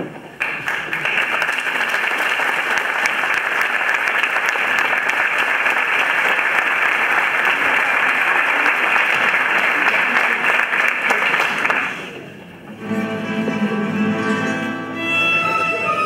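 Audience applauding steadily for about twelve seconds, then dying away. About a second later a string band of acoustic guitars and violins starts playing.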